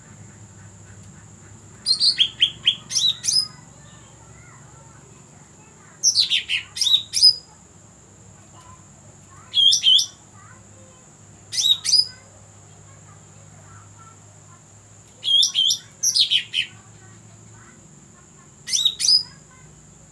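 Cucak rante bird calling: six short bursts of quick, high, downward-sweeping notes, a few seconds apart. A faint steady high-pitched tone runs underneath.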